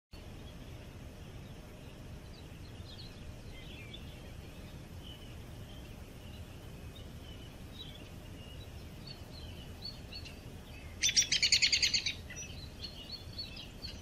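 Songbirds chirping faintly here and there, with one loud, fast trill lasting about a second near the end. A steady low rumble runs underneath.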